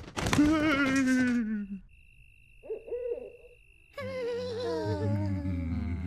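Cartoon character voices making wordless sounds: a long moaning 'ooh' that falls in pitch, then a thin steady high tone for about two seconds, then a lower grumbling voice from about four seconds in.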